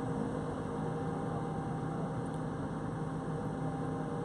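Mobile cranes' diesel engines running steadily: a low, even hum of a few steady tones over a rushing background.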